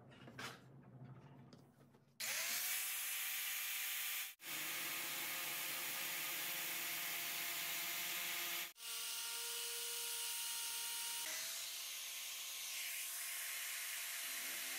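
Small electric angle grinder with a thin cutting disc cutting lengthwise into a PVC pipe: a steady motor whine over a harsh hiss. It starts about two seconds in with the whine rising as the disc spins up, stops short twice, and rises again once near the end. Before it starts there are a few light handling knocks.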